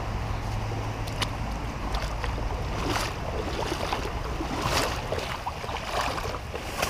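Wading through a shallow stream on foot: irregular splashing and sloshing of water against the legs, over a steady low rumble.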